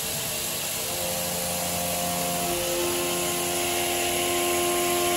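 CNC machining centre milling stainless steel with a 16 mm four-flute WIDIA WCE4 solid carbide end mill at about 5,300 rpm in high-speed trochoidal passes. A steady hiss, with a steady cutting tone that comes in about a second in and grows stronger.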